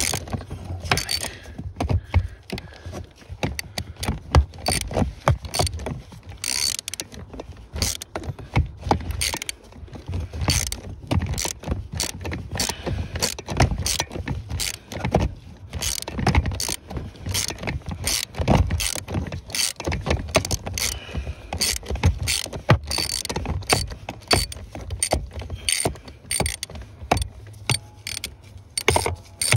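Tools and parts at a BMW E60 clutch pedal pivot clicking and knocking rapidly and irregularly as the pedal pin and bushes are worked on.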